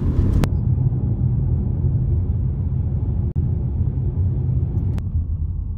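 A car driving along a road, heard from inside the cabin: a steady low rumble of engine and tyre noise, easing slightly toward the end.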